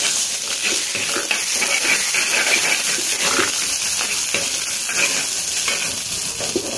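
Chopped onion and garlic sizzling in hot oil in a clay pot on a high flame, with a steel ladle stirring and scraping against the pot in irregular strokes.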